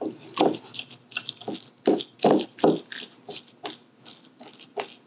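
Cream cheese mixed with pesto and olive oil being mashed and stirred by hand with a utensil in a stainless steel mixing bowl. It gives irregular wet squelches and scrapes, a few each second.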